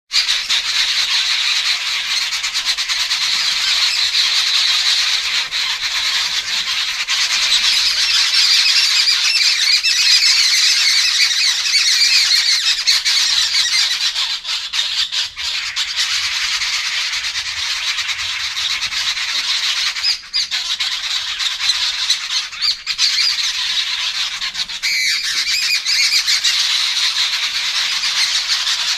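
Jungle babblers calling in a harsh, squeaky chatter, nearly continuous with a few brief lulls, typical of a foraging group of these birds.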